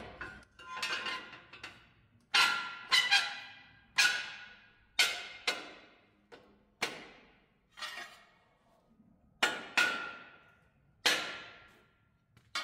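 A 3x3 square steel tube cross member being knocked into place on a truck's chassis frame: about a dozen sharp, ringing metal clanks, each dying away before the next, at about one a second.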